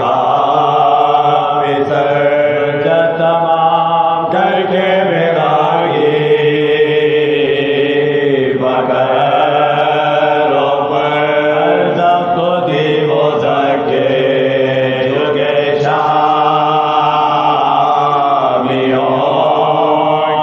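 Soz-khwani: male voices chanting a Shia elegy unaccompanied, in long held notes that bend and change every few seconds over a steady low drone.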